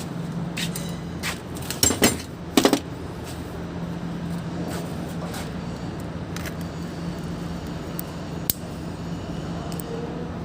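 Metal tools and parts clinking and knocking, a handful of separate clanks with the loudest two coming about two and three seconds in, over a steady low hum.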